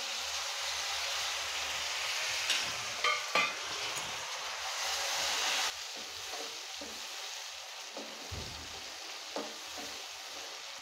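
Chopped tomatoes sizzling in hot oil and fried spice masala in a kadai, stirred with a wooden spatula. The loud sizzle drops abruptly to a quieter one about six seconds in, with a few clinks around three seconds in and light knocks of the spatula against the pan later.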